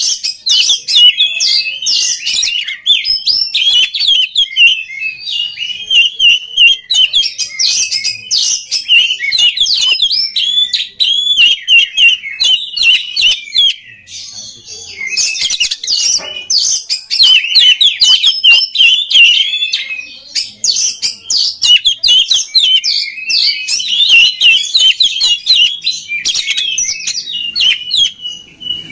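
Oriental magpie-robin (kacer) singing a fast, varied song of rapid chirps and whistles, with two brief lulls along the way.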